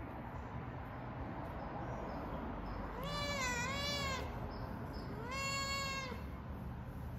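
Tabby-and-white cat meowing twice while its belly is being rubbed: a first meow about three seconds in that dips in pitch midway and rises again, then a second, steadier meow a second later.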